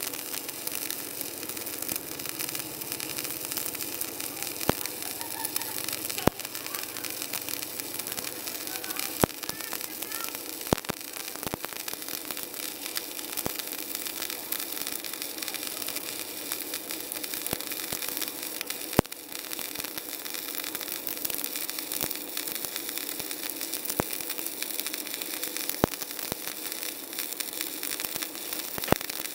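Stick welding arc burning a 4 mm electrode: a steady crackling hiss with sharp pops scattered through it.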